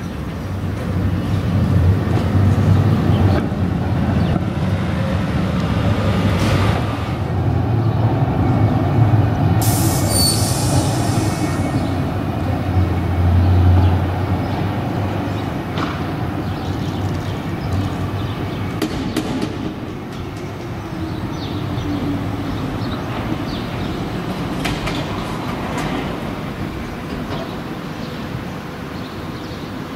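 Düwag GT-W D8 articulated tram running on its rails with a steady low rumble. About ten seconds in, its steel wheels squeal briefly against the rails.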